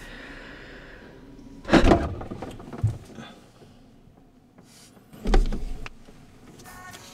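Refrigerator door opening: a loud thud with a low thump about two seconds in, a smaller knock soon after, and another loud thud about five seconds in as the contents of the door shelf are handled.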